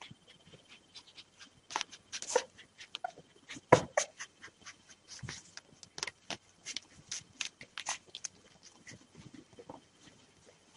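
Newborn Rafeiro do Alentejo puppies squirming and nosing about on bedding, making a scatter of short, irregular clicks, loudest and busiest between about two and four seconds in.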